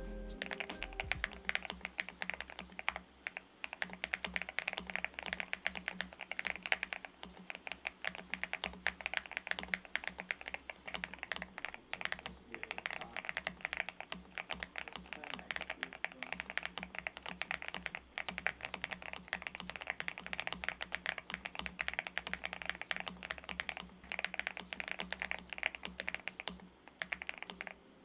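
Continuous fast typing on a NuPhy Halo75 V2, an aluminium gasket-mount 75% mechanical keyboard with NuPhy Mint switches and MSA-profile PBT keycaps. The keystrokes sound deep, and the spacebar and modifiers sound thocky. Soft background music plays underneath, and the typing stops just before the end.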